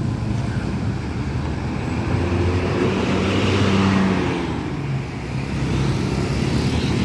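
A bus's diesel engine and tyres passing close by in heavy road traffic. The engine note and road noise swell to a peak about three to four seconds in, then fade.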